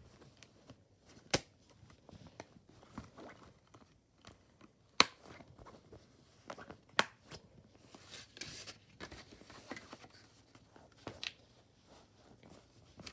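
Plastic disc case and discs being handled: faint rustling and rubbing, with four sharp plastic clicks spread across it.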